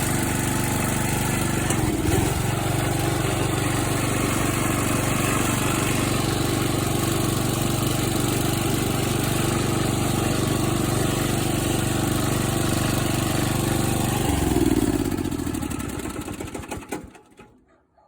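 Riding lawnmower's engine running steadily with its carburetor re-tuned, briefly revving up, then falling in pitch and dying away to a stop near the end.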